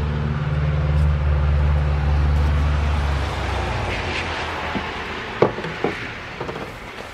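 A loud, steady low hum fades out a little after three seconds. It is followed by a few light clicks and taps of the 1950s Disston keyhole saw's steel blade being fitted into its wooden handle.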